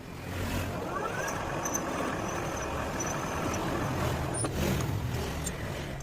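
A metal lathe's motor spinning up, its whine rising about a second in, then running steadily.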